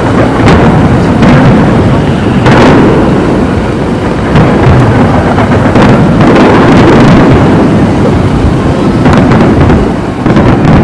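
Large fireworks display: a dense, continuous barrage of bangs, with sharper reports standing out every second or two. It is very loud throughout.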